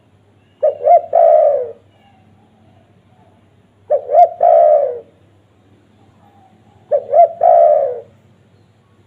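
Spotted dove (tekukur) cooing: three calls about three seconds apart, each two short notes followed by a longer coo that falls in pitch at the end.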